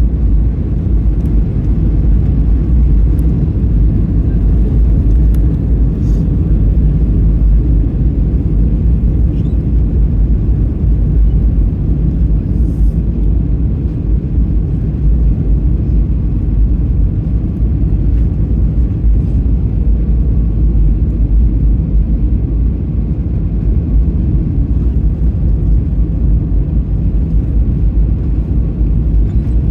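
Airliner cabin noise heard from a window seat: a steady, low rumble of the engines and rushing air that holds level throughout.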